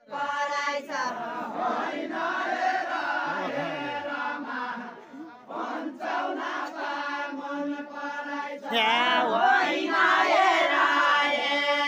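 Unaccompanied Deuda folk song chanted by a group of villagers, men and women, in long drawn-out phrases. It dips briefly around five seconds, and a louder, nearer voice joins about nine seconds in.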